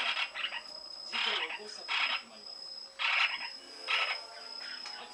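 Lineolated parakeet giving its breeding-season calls: a series of about five short chattering calls, roughly one a second.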